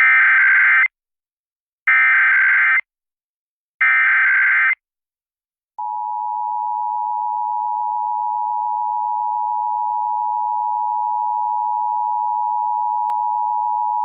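Emergency Alert System alert for a required monthly test. It starts with three short, buzzy digital header bursts about two seconds apart. After a gap comes the long, steady two-tone attention signal, held for about eight and a half seconds.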